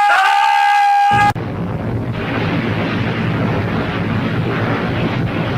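A loud, steady high-pitched tone that breaks off briefly at the start and cuts out just over a second in. A continuous deep rumble of a large explosion then takes over and keeps going.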